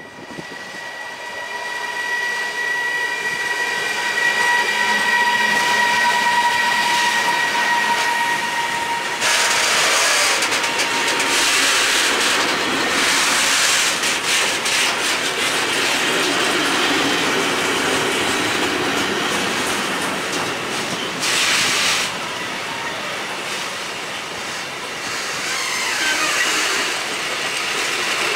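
Traxx 3 electric locomotive with a container freight train pulling past. A steady high whine is heard for the first nine seconds or so. After that come the rumble and clickety-clack of the container wagons' wheels over the rail joints.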